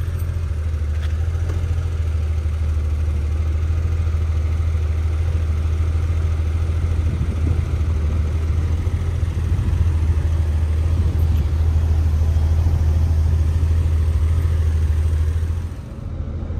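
Porsche 993 Carrera 4 Cabriolet with its power soft top in operation: a steady low hum from the car and top mechanism. It drops off sharply about a second before the end.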